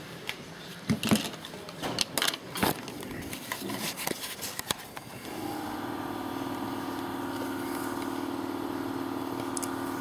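Irregular knocks and scrapes of something being handled, then from about five seconds in a steady, unchanging motor hum.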